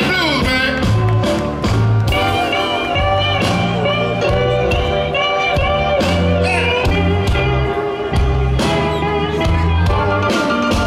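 Live electric blues band playing: an amplified harmonica, cupped with its microphone in the hands, plays held, wavering notes over electric guitar, organ and a steady drum beat with heavy bass.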